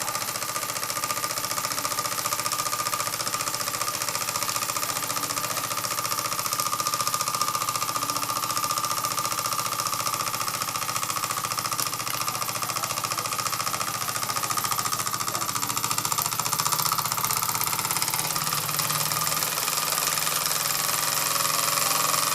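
1930s Bing upright toy steam engine running steadily under steam, its rapid exhaust beats and mechanism making a fast, even chatter, a little louder over the last few seconds at a fair amount of revs.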